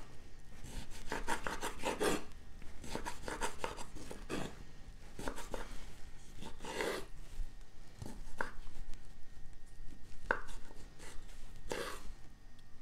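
Kitchen knife slicing hearts of palm into rounds on a wooden cutting board: a run of irregular cuts and taps of the blade on the board, with a few sharper knocks in the second half.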